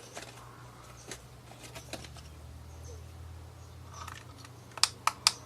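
Small clicks and taps from LEDs and the plastic LED tester being handled, with a quick run of sharp clicks near the end.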